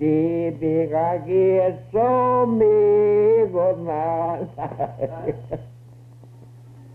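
A man's voice singing a slow unaccompanied chant, with long held notes broken by short pauses. The voice stops about two-thirds of the way through, leaving a steady low hum.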